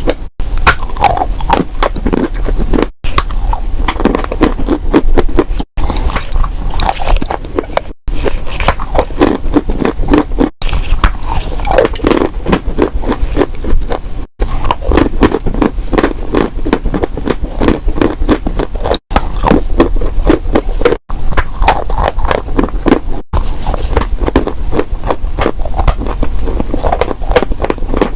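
Close-miked crunching of dry clay being bitten and chewed, a dense crackle of small crunches. It is broken by brief silent gaps every few seconds, over a steady low hum.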